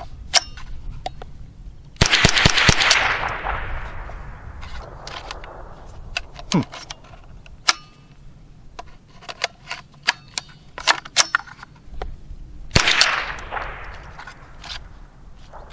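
Rock Island TM-22 semi-auto .22 rifle firing a quick string of about four shots about two seconds in, each with a long echo. This is followed by several seconds of small clicks and rattles as the action and magazine are worked, then one more shot near the end. The rifle is stopping between shots: it is failing to feed and eject reliably with Winchester Super X ammunition.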